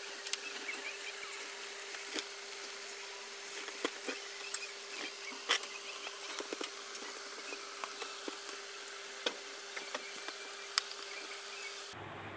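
Scattered light clicks and taps from handling a flat ribbon cable and its plastic plug, over a steady faint electrical hum and hiss.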